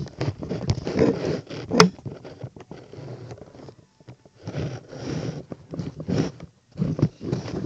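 Handling noise from a handheld camera being swung about: fabric rustling, scraping and small knocks against the microphone. It comes in two busy stretches with a short lull around the middle.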